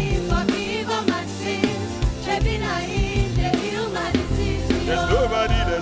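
Gospel song with singing over a steady drum beat.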